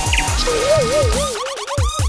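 Electronic background music: deep kick drums that drop in pitch, with a wavering synth tone coming in about half a second in.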